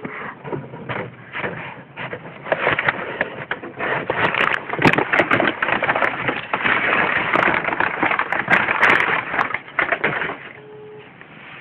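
Rapid rustling, scratching and clicking as a kitten scrabbles and pounces through loose cloth and across a wooden floor while playing with a toy mouse. It quietens shortly before the end.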